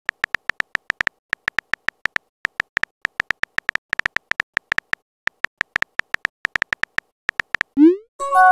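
Texting-app keyboard tap sounds: rapid short clicks, about seven a second with brief pauses, as a message is typed out letter by letter. Near the end a quick rising swoosh as the message is sent, then a chiming message tone.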